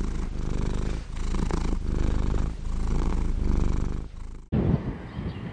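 Cat purring close to the microphone, a steady low rumble that swells and eases with each breath, about three breaths in all. A little before the end it stops abruptly, giving way to a different, quieter background with a brief low thump.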